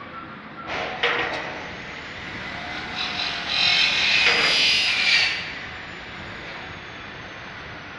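Wooden loading ramps knocking and scraping under a slowly rolling car: a couple of sharp knocks about a second in, then a loud scraping rub from about three seconds in that stops suddenly a little after five seconds.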